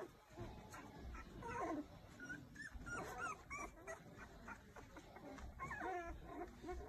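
Young puppies whimpering and squeaking: a string of short, high whines that rise and fall in pitch.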